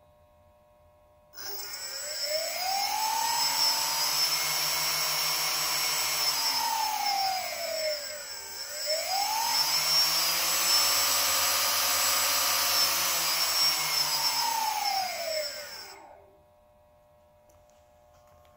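Four ducted propeller fans driven by 980KV brushless drone motors with 6040 propellers, run under potentiometer control. They start suddenly about a second and a half in, climb in pitch, wind down almost to a stop about halfway, spin up again and wind down to a stop near the end, with a steady high whine underneath.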